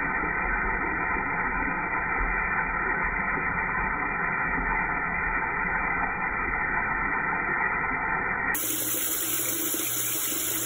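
A steady stream of liquid pouring and splashing into toilet bowl water. It sounds muffled at first, then turns abruptly brighter and hissier about eight and a half seconds in.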